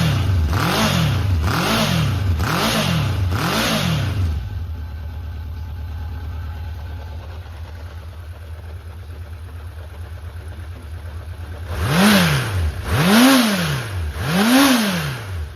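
Honda CB750F (RC04) air-cooled inline-four engine blipped in about five quick revs, then settling to a steady idle. Near the end it is revved three more times before dropping back to idle. It runs cleanly with no abnormal noise, as the seller describes it.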